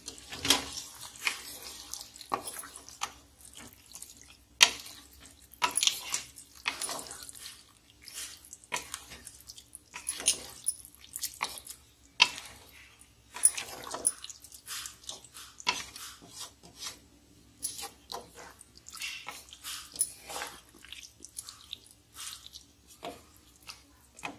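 Wooden spoon stirring watery chicken curry gravy in an aluminium pressure-cooker pan: irregular wet squelches and sloshes with scrapes against the pot.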